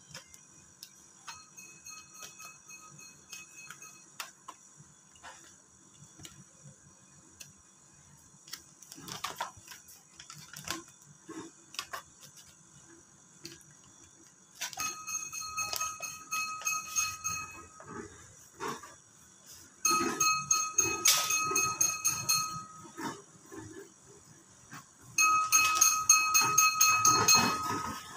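Clear plastic sticker film crackling and rustling as it is handled and smoothed onto a plastic speedometer cover. Three times in the second half, for about three seconds each, a steady high ringing tone with overtones sounds over the crackling, louder each time.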